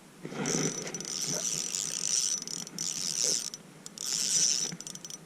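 Fishing reel being cranked in several spurts, each about a second long, with a rattling, ratcheting whir, as a hooked bass is reeled up through the ice.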